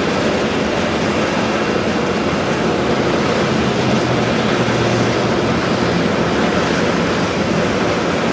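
Train running along the rails: a steady, loud rushing noise, with a faint low hum about halfway through.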